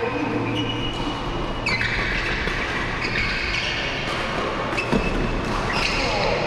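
Badminton play in a large indoor hall: a steady background hum, short high squeaks from shoes on the court mats, and a sharp hit about five seconds in.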